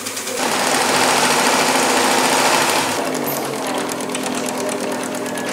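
Electric sewing machines stitching fast through fabric: a rapid, even needle rhythm. About three seconds in, the sound changes to a somewhat quieter run with a different beat, as the work moves to another machine.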